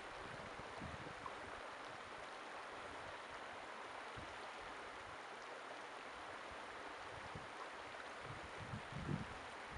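Shallow mountain river rushing steadily over rocks and around snowbanks. Brief low gusts of wind on the microphone come near the start and again near the end.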